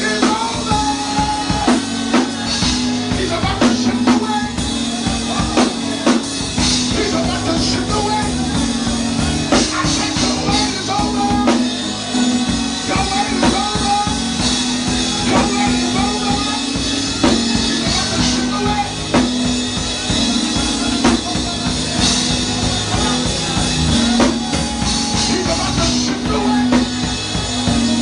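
Live band music: a drum kit keeps up a beat under a long-held keyboard chord, with other pitched lines moving above it.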